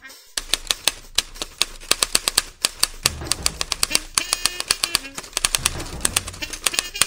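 Typewriter keys clacking in quick, irregular strokes, several a second, as a sound effect for text being typed out.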